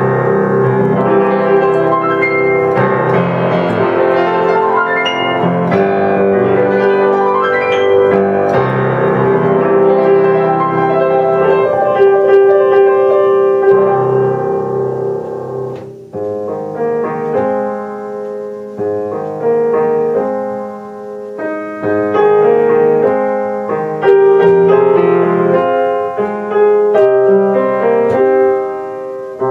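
Freshly overhauled Ohashi upright piano being played. The first half is a dense, flowing stream of notes ringing into one another; about halfway through, the playing turns sparser, with separate chords and melody notes.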